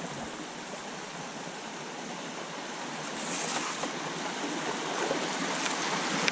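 Water rushing over a small river dam, a steady noise that grows gradually louder.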